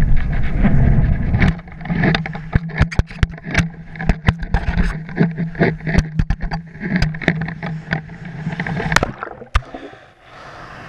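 Wind rushing over a camera mounted on a kitesurfing kite. After it comes a run of sharp, irregular snaps and rattles over a steady low hum. About nine to ten seconds in, the sound drops away to a quiet, muffled hiss as the kite falls into the water and the camera goes under.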